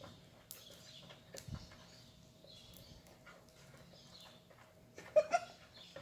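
Faint sticky squelches and clicks of homemade glue slime being kneaded and stretched by hand in a plastic tub; the slime is not yet fully activated. A short laugh near the end.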